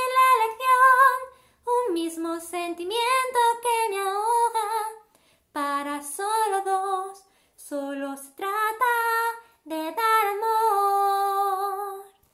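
A woman singing unaccompanied in several short phrases with brief breaths between them, her pitch wavering and sliding. The last phrase ends on a long held note.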